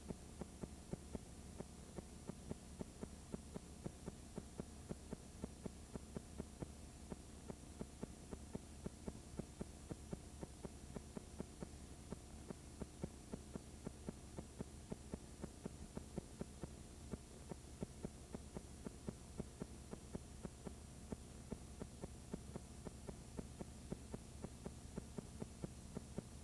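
Faint steady electrical hum with hiss and a sharp tick repeating two or three times a second: the playback noise of a blank, unrecorded stretch of videotape.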